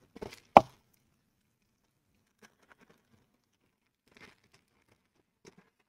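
Plastic-sleeved sticker packets handled on a desk: a brief rustle, then one sharp knock about half a second in, followed by a few faint crinkles.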